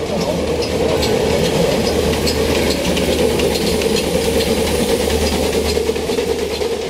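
Uerikon-Bauma Bahn No. 3 steam locomotive running past, with a low rumble, steam hiss and scattered clicks, loudest about two to three seconds in and then slowly fading as it moves away.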